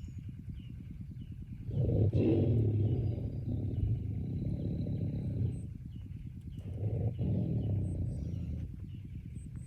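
Tiger growling and roaring in low, pulsing bouts. A long one starts about two seconds in and runs about four seconds; a shorter one comes near the end.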